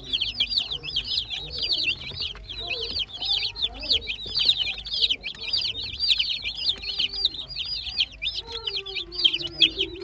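A flock of baby chicks peeping without pause, many high, falling peeps overlapping.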